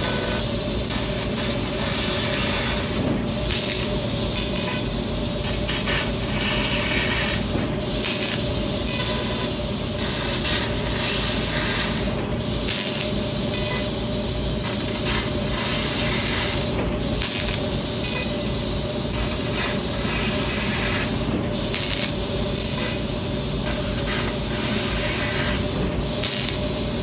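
6 kW laser cutter cutting 15 mm S235JR structural steel: a steady loud hiss of the cutting head's gas jet through the cut. The hiss dips briefly every four to five seconds.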